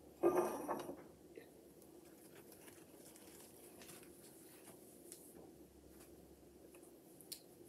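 A short rustle of paper towel being handled close to the microphone about a quarter second in, then faint light rustles and small clicks.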